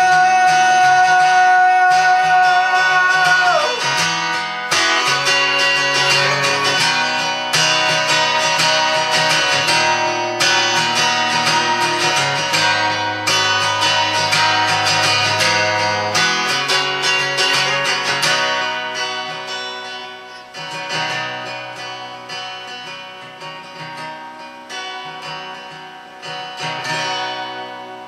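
A man's singing voice holds a long note that slides down and stops a few seconds in, over strummed acoustic guitar. The acoustic guitar then plays on alone to close the song, growing gradually quieter over the last several seconds.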